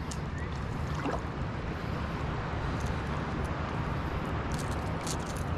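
Steady outdoor noise of wind on the microphone and seawater washing along the shore, with a few faint light clicks in the second half.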